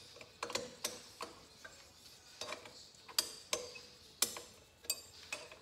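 Steel hex key clicking and clinking against the tight Allen bolts and cylinder head of a Honda TRX300 engine as it is worked by hand. About ten sharp metal ticks, irregularly spaced.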